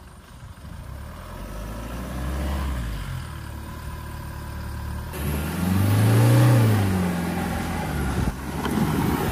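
Toyota Fortuner SUV's engine pulling at low revs, then revving up and back down about five seconds in, as it crawls over an axle-twister course with wheels lifting off the ground.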